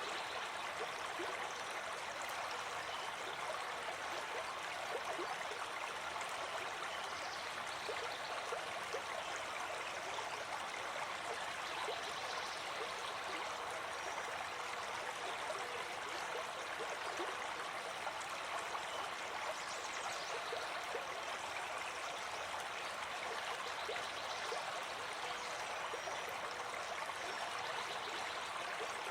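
Running water flowing and splashing steadily, like a small stream, with fine bubbling detail and no breaks.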